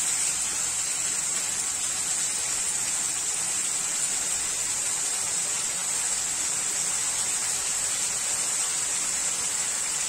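Chicken pieces in chilli paste sizzling steadily in a frying pan, an even high hiss.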